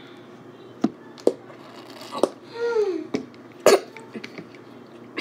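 A boy drinking from a plastic bottle: several short, sharp gulping clicks from his mouth and throat, and a short falling vocal sound about two and a half seconds in.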